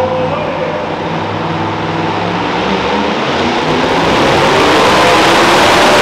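Super modified two-wheel-drive pulling truck's engine running at the starting line with a steady low note, then opening up about four seconds in, getting louder and fuller as the pull gets under way.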